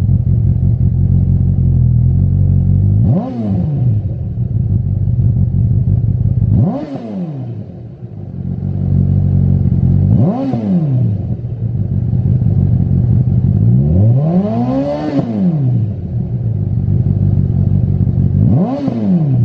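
2008–2017 Honda CB1000R's inline-four engine idling through a Lextek GP1 aftermarket slip-on silencer, with the throttle blipped five times a few seconds apart. Each rev rises in pitch and drops quickly back to idle; the fourth is held longer than the others.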